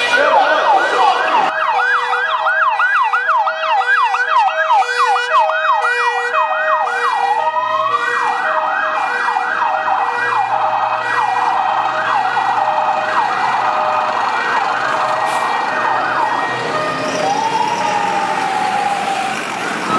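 Several fire-brigade emergency vehicle sirens sounding together on a call-out. One gives a fast yelp sweeping up and down about three times a second, with one slow rising wail in the middle. Another gives a two-tone hi-lo alternating about twice a second.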